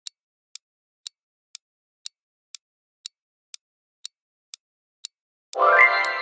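Countdown timer sound effect: sharp clock ticks, about two a second, then about five and a half seconds in a ringing chime with many overtones that fades away, marking the reveal of the answer.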